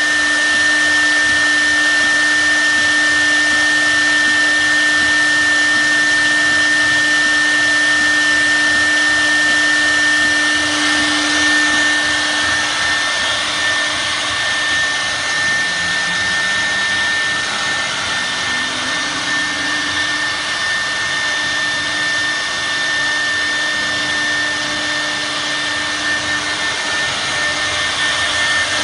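CNC wood router spindle running and milling a log turned on the machine's rotary axis: a steady high whine over the noise of the cutting, with a lower hum that changes pitch partway through.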